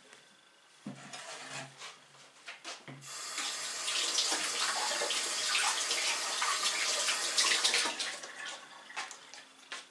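Kitchen tap running into the sink for about five seconds, turned on about three seconds in and shut off near the end, with a few light knocks before it.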